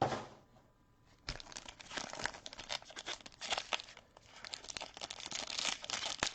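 Cardboard box being torn and folded flat by hand, with crackling, crinkling and tearing starting about a second in and easing briefly partway through.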